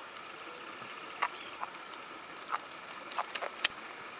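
A few light, scattered splashes and ticks of water from a golden dorado held at the surface in a lip gripper, over a steady faint hiss.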